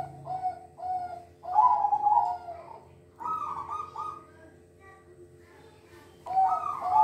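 Silver-morph zebra dove (perkutut) cooing: phrases of short rolling coo notes, the loudest starting about a second and a half in, again at about three seconds, and again near the end.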